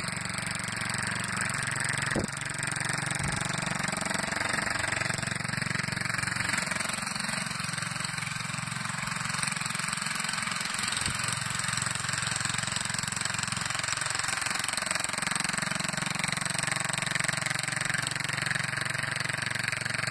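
Small single-cylinder engine of a David Bradley walk-behind garden tractor running steadily under way. It sounds smooth, not missing or stuttering.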